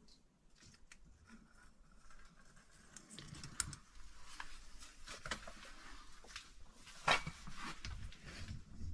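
Footsteps and scuffs on cave rock with the rustle of gear, irregular scrapes and clicks as a caver moves over the rock. Sparse at first, busier from about three seconds in, with one sharp click or knock about seven seconds in.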